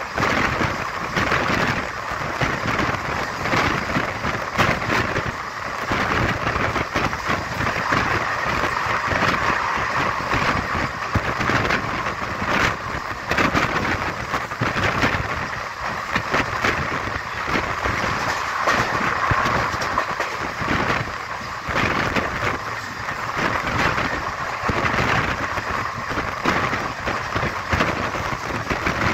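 Steady running noise of a moving vehicle: a constant hiss with many small knocks and rattles over it.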